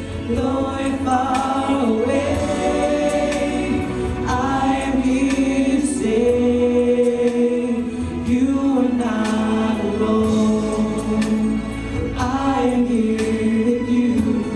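Mixed-voice show choir singing in harmony through stage microphones, holding chords that change every couple of seconds, with short percussive ticks keeping a beat underneath.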